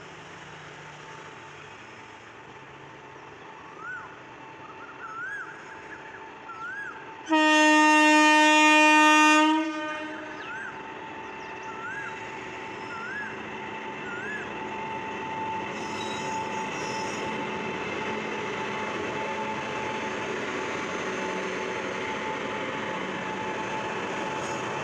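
WAG-9HC electric freight locomotive sounding its horn in one long blast of about two and a half seconds. The steady running noise of the freight train then grows slowly louder.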